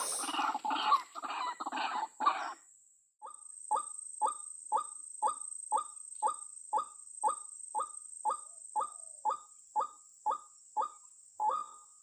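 White-breasted waterhen calling: a dense run of harsh, overlapping clucking calls, then after a brief break a steady, monotonous series of short 'kwak' notes at about two a second.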